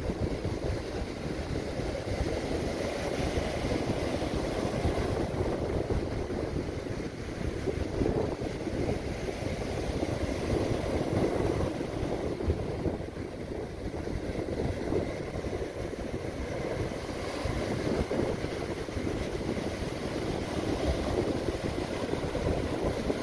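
Surf breaking and washing up a sandy beach: a steady low rushing noise that swells and eases.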